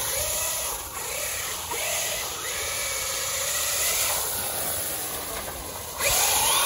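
Electric motor of a Losi Super Rock Rey RC truck whining, rising and falling in pitch as the throttle changes, over a steady hiss. The hiss gets louder about six seconds in.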